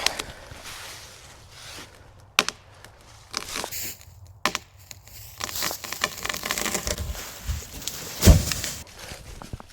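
A felled tree's trunk cracking and splintering as its hinge gives way, a hinge the feller calls terrible. Two sharp cracks come first, then a long stretch of crackling, breaking wood and a heavy thud as the tree hits the ground about eight seconds in.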